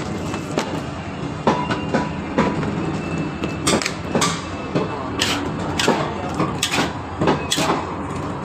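Metal cooking utensils clanking against a steel pan, with sharp strikes every half second to a second, over a steady rushing noise from the stove.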